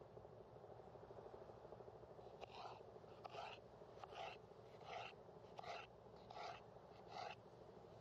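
Knife slicing through a crisp red bell pepper onto a wooden cutting board: seven faint, even strokes a little under a second apart, starting about two and a half seconds in, over a quiet steady background hiss.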